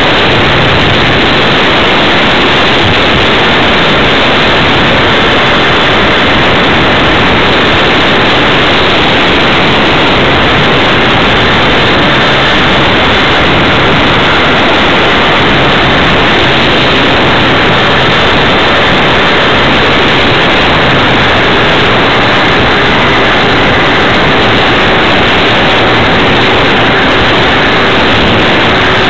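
Loud, steady rush of airflow and propeller noise from an RC Tiger Moth biplane model in flight, picked up by a small camera mounted on the plane, with a faint steady motor hum under the noise.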